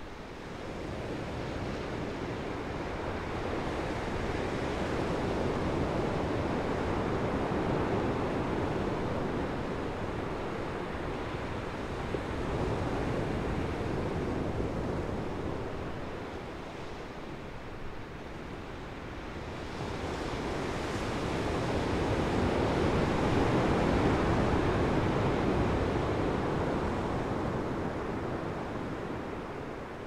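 Ocean surf breaking and washing up a sand beach: a steady rush of water that swells and eases in slow surges several seconds long, loudest about two thirds of the way through.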